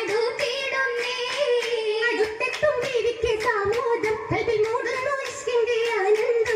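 Girls singing an Oppana song in chorus through microphones, the dancers keeping time with rhythmic hand-claps.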